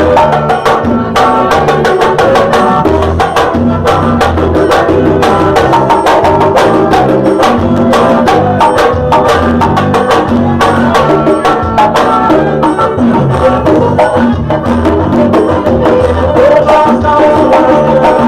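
Band music with busy hand percussion: fast, dense strikes playing along over a bass line and held melody notes.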